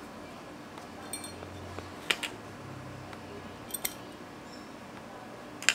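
Small steel parts of a Glock 19X Gen5 slide clicking and clinking against a punch tool as the slide is taken apart: four sharp metallic clicks, the first with a brief ring and the loudest near the end.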